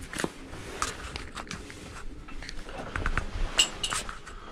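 Handling noise from a handheld camera in a small compartment: scattered light clicks and rustles, with two short high clinks near the end.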